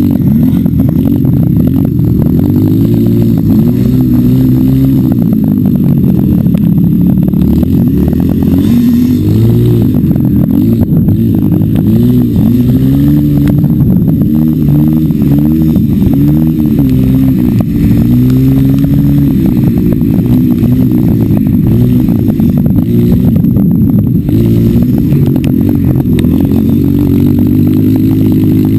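Engine of an off-road vehicle being ridden on a dirt trail, its pitch rising and falling over and over as the throttle is opened and closed, with rattling from the rough ground. It sounds muffled, with little above the low range.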